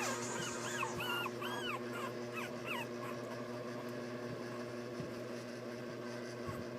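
Three-week-old puppies whimpering and squeaking: many short, high squeals that rise and fall, thick over the first three seconds, then fainter and sparser. A steady low hum runs underneath.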